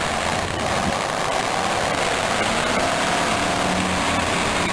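Demolition derby cars' engines running steadily as a dense, even drone with a few faint knocks.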